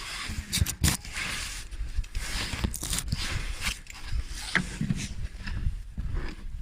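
Scattered clicks and light scrapes of hands and tools working on the plastic air filter housing as its last T-20 Torx screw is fitted.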